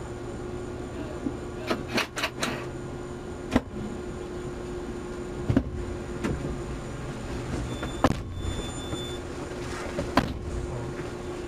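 Steady hum of an idling police patrol car, heard through its dashcam audio, with a handful of sharp clicks and knocks scattered through it.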